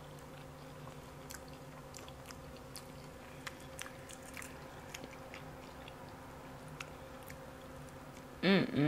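Close-miked eating: soft chewing and small clicks of a fork on a plate as deep-fried catfish is picked apart and eaten, over a faint steady hum. A short hummed "mmm" comes near the end.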